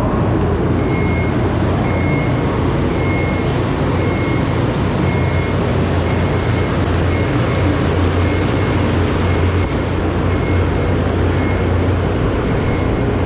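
Steam heater switched on and running: a loud, steady rushing noise with a low hum, while an electronic alarm beeps about once a second.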